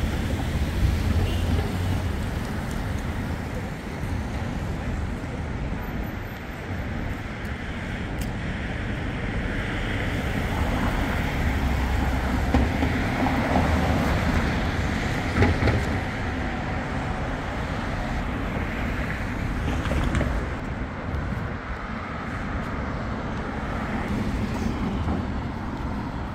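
City street ambience: steady road traffic noise with a low rumble, swelling now and then as vehicles pass.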